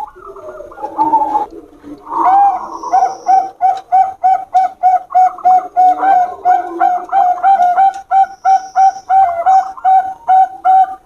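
Zebra doves (Bangkok perkutut) cooing. After softer, lower notes for about the first two seconds comes a rapid run of short, clipped coos, about three a second.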